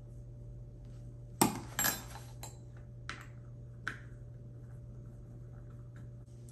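Hard knocks and clinks of gaming chair parts and tools being handled during assembly: one sharp knock about one and a half seconds in, a double knock right after, then three lighter clicks.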